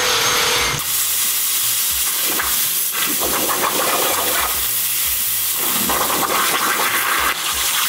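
CNC plasma cutter torch cutting quarter-inch copper plate: after a brief steady tone, the arc comes on about a second in as a loud, steady hiss that holds until near the end.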